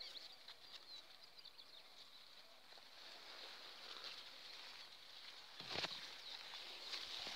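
Leaves and plant stalks rustling and brushing as someone creeps slowly through dense vegetation, with a louder brush of leaves near the end. Faint high chirping in the background.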